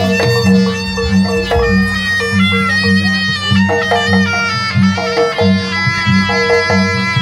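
Jaranan gamelan music: a slompret, the Javanese double-reed shawm, plays a sustained wailing melody over a steady pulsing beat of gongs and drums.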